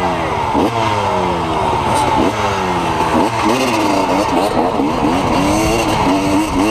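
Enduro dirt bike engine under a rider's throttle: its pitch snaps up and falls away again several times, roughly once a second, then rises and falls more smoothly in the second half.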